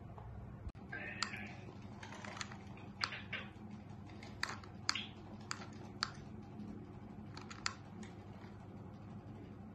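Irregular light clicks and taps, about a dozen, spaced unevenly, from a kitten playing with a remote-control toy mouse on a tiled floor, over a steady low hum.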